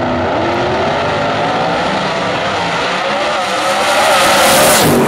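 Camaro and Corvette drag cars launching side by side and running down the strip at full throttle, engine pitch climbing and dropping back with each gear change. The sound grows louder near the end.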